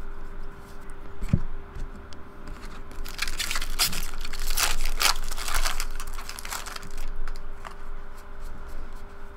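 Foil wrapper of a Bowman baseball card pack torn open and crinkled, a crackly rustle from about three seconds in until about seven seconds in. Around it come softer clicks and slides of trading cards being shuffled in the hands.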